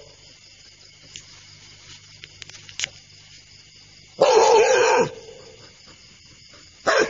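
A dog barking: one drawn-out bark about four seconds in, then two short barks near the end.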